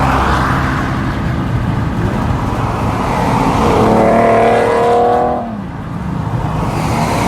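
Car engine and exhaust running loudly, rising in pitch as it revs between about three and a half and five seconds in, then easing off.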